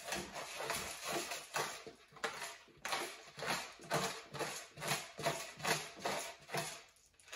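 Hand-held black pepper grinder being twisted over a bowl: a run of short crunching grinds, about three a second, stopping shortly before the end.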